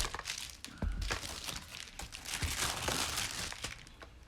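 Packaging rustling and crinkling in a series of irregular scrapes as a delivered package is opened by hand, with a dull bump about a second in.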